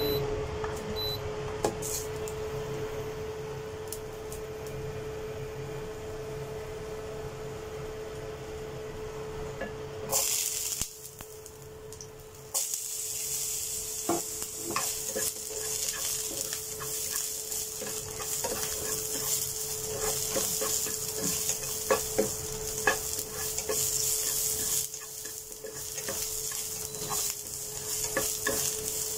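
Garlic cloves and ginger slices sizzling in hot oil in a nonstick frying pan, with a spatula scraping and tapping as they are stirred. The sizzle starts suddenly about ten seconds in, when they go into the oil, and a steady hum runs underneath throughout.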